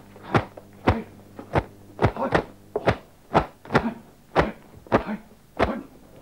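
A rapid series of sharp whacks, about two a second, from kung fu practice strikes.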